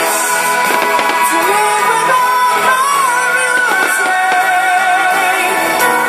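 Rock band playing live with a singer holding long, wavering notes over guitar.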